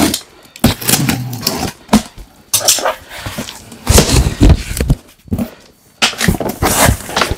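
Box of firecrackers being opened and unpacked by hand: a run of irregular rustling and handling noises from the packaging, coming in sudden bursts.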